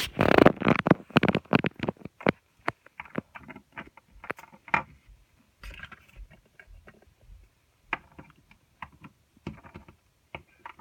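Close handling noise: rubbing, scraping and clicking right against the microphone, densest in the first two seconds, then scattered sharp clicks and small knocks.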